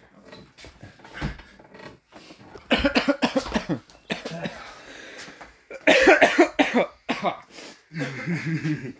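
A person coughing in three fits, a wet cough that is still bringing up phlegm.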